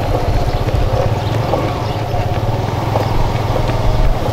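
A vehicle engine running steadily at low speed, with a constant low rumble.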